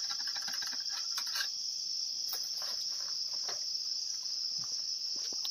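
A steady, high-pitched insect chorus, with a few faint taps and scrapes under it.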